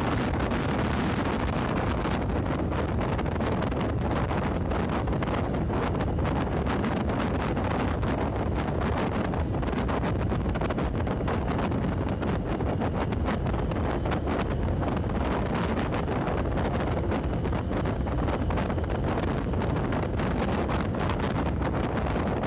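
Steady wind rushing and buffeting over the microphone of a moving motorcycle, with the vehicle's running and road noise low beneath it.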